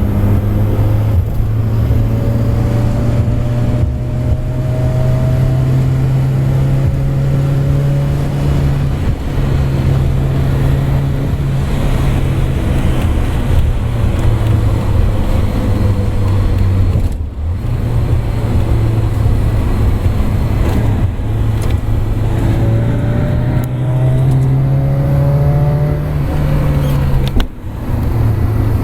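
Lada 2106 four-cylinder engine, built by VFTS, running during its break-in. Its note climbs gently several times and drops off briefly three times, about a third in, about halfway and near the end.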